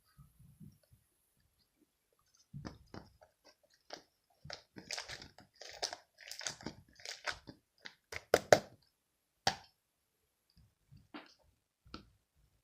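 Slime being squished and pressed by hand, giving a run of irregular crackles and pops that is loudest about two-thirds of the way through.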